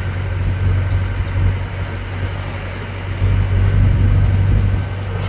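Tourist road train on the move, heard from aboard: a steady low engine hum with road noise, swelling a little past the middle.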